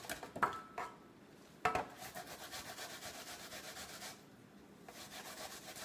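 Pear being grated on the fine side of a metal box grater: quick, even scraping strokes, with a knock about a second and a half in and a short pause about four seconds in.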